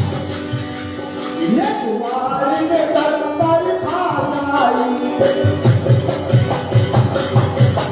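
Live qawwali music: a harmonium's held tones and melody over a steady hand-drum beat. The drums drop out for a few seconds while a gliding melodic line plays, then come back in a little past halfway.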